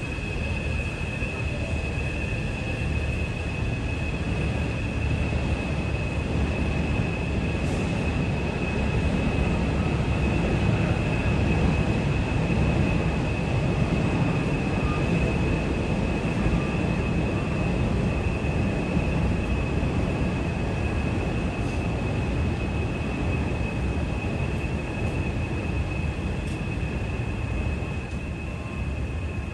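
A train rumbling through a station: a deep rumble that swells to its loudest about halfway through and then eases off, over a steady high whine.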